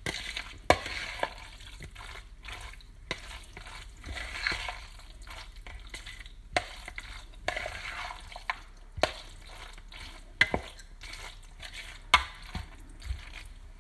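A metal fork stirring mayonnaise-dressed chicken macaroni salad in a plastic bowl: wet squelching and scraping, with sharp clicks now and then as the fork knocks the bowl.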